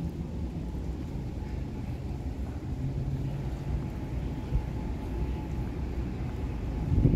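Steady low outdoor rumble with a low hum that fades in and out, and one louder thump right at the end.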